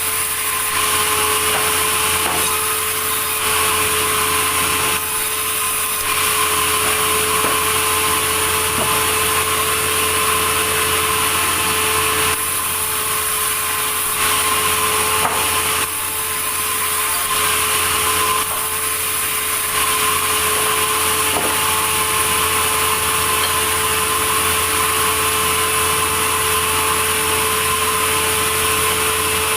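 Sawmill saw running and cutting through a log: a steady machine hum under a loud, continuous hiss of the blade in the wood, which eases off briefly a few times partway through.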